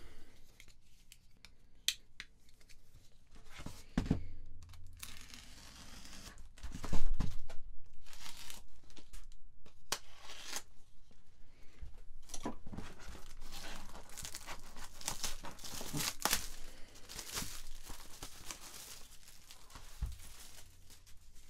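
Plastic shrink-wrap being slit with a multi-tool knife blade, then torn and crinkled off a cardboard box, with scattered clicks and handling knocks. The loudest tear comes about seven seconds in, and rustling continues after it.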